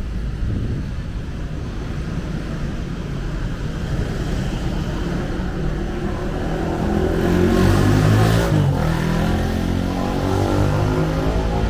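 Road traffic on a city street: a steady rumble of engines, with one vehicle passing close by, louder about eight seconds in.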